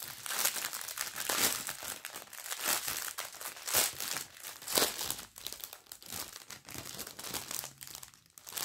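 Plastic packaging of a diamond painting kit crinkling and rustling in irregular crackles as it is handled.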